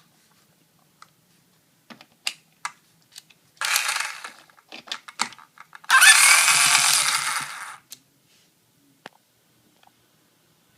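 Makita cordless drill/driver, converted to two 18650 lithium cells, run briefly twice: a short burst about three and a half seconds in, then a longer, louder run about six seconds in. Scattered clicks of the trigger and handling come before and between the runs.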